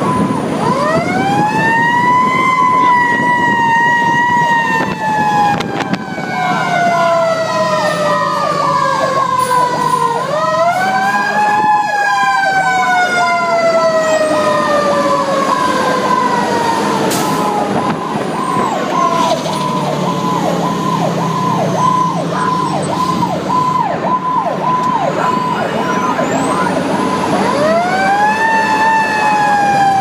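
Fire engine siren heard from the cab, winding up in pitch three times (about a second in, about ten seconds in and near the end) and each time sliding slowly back down. A second siren tone pulses about twice a second through the middle, over the truck's engine running underneath.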